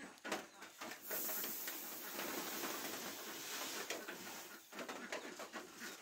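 Grain poured from a sack into the rice mill's metal hopper: a steady rushing hiss that starts about a second in and lasts nearly four seconds, after a few knocks of handling.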